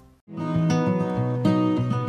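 Music starts after a brief silence, about a quarter of a second in, with steady held notes.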